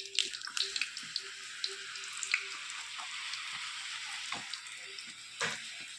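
Food frying in hot oil: a steady sizzle with fine crackles, and two sharp clicks, one about four and a half seconds in and one near the end.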